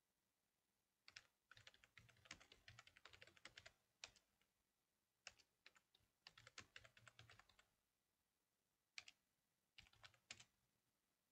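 Faint typing on a computer keyboard: several quick runs of keystrokes, then a few single key presses near the end.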